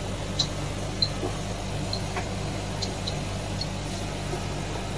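Electric pet clippers running with a steady buzz while trimming a Lhasa apso puppy's coat, with a few faint light ticks.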